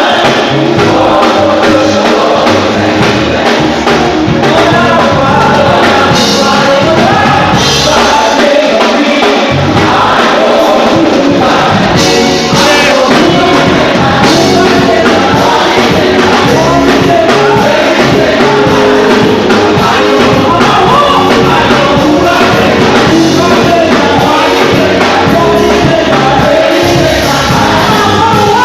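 Live gospel worship music: a choir and singers with a backing band, loud and continuous. The bass drops out briefly about eight seconds in.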